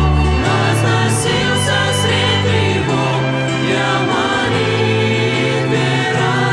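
Mixed group of male and female voices singing a hymn in harmony, accompanied by upright bass and acoustic guitar, the bass holding long notes that change every second or two.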